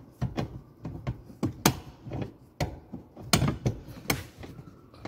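Irregular clicks and knocks of hard plastic car interior trim being handled and fitted under the glove box, about four of them louder than the rest.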